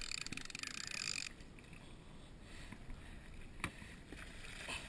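Conventional fishing reel buzzing in a fast, even whir during a fight with a fish, cutting off abruptly about a second in. A couple of sharp knocks follow near the end.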